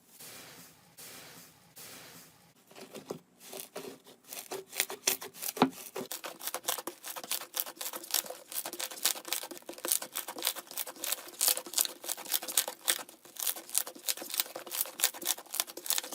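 Hands working slime: a few soft squishing swells, then from about four seconds in a dense, continuous run of sharp crackles and pops as the slime is pressed and stretched.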